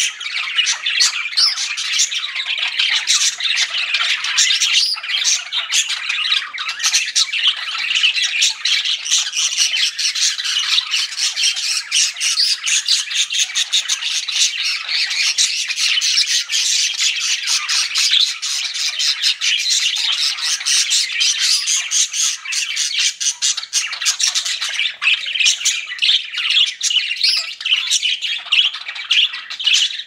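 Budgerigars chattering: an unbroken stream of quick chirps, warbles and squawks.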